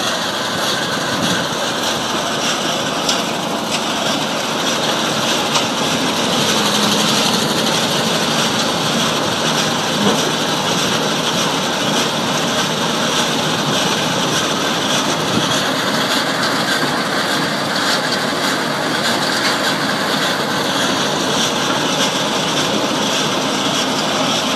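Maxigrind 425 horizontal grinder running under load, its 425-horsepower CAT 3406 diesel engine at working speed while the rotor grinds yard waste of grass, leaves and branches. The noise is loud and steady, with a low engine tone and fast faint crackling from the material.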